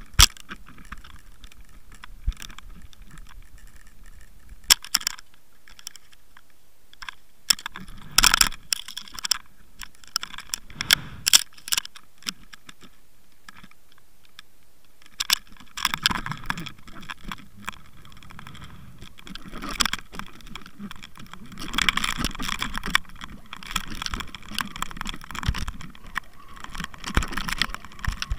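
Knocks and rattles picked up underwater by a camera mounted on a fishing line as it is jerked and spun about: a few scattered single knocks, then from about halfway a dense, continuous clattering.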